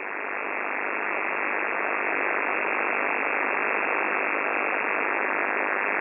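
Radio receiver static: a steady hiss with no tones in it, growing slightly louder over the first two seconds.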